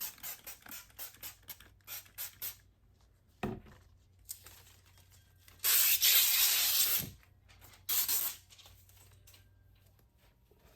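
Trigger spray bottle of soapy water squirting onto window glass: a quick run of short squirts, then one longer spray lasting over a second about six seconds in and a short one near eight seconds. A single knock about three and a half seconds in.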